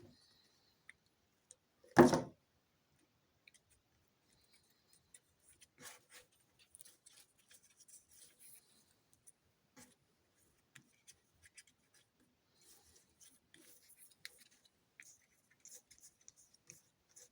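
A single loud thump about two seconds in, followed by faint scattered clicks and rustling.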